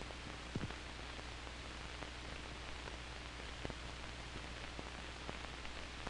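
Steady hiss of an old 16mm film soundtrack with a low hum under it and a few faint scattered clicks.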